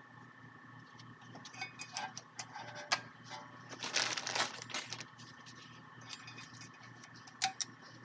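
Small metal brake hardware parts and tools clinking and rattling as they are handled and set down, with a dense cluster of clinks about halfway through and two sharp clicks near the end, over a faint steady hum.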